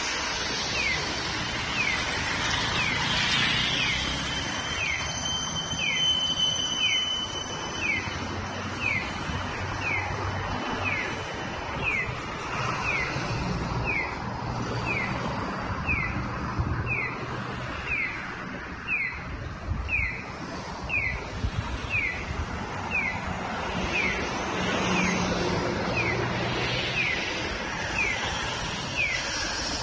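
Japanese audible pedestrian signal sounding its 'piyo piyo' cuckoo-free chick call: short falling electronic chirps repeating about once a second, sounding while the walk light is green to tell visually impaired pedestrians they may cross.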